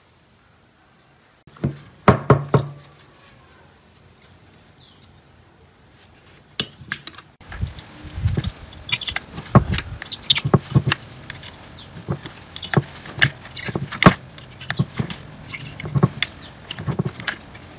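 Steel screwdriver working at the riveted metal nameplate on an old Hitachi hacksaw's motor housing: a couple of loud knocks about two seconds in, then from about seven seconds on irregular sharp metal clicks and scrapes as the plate is pried.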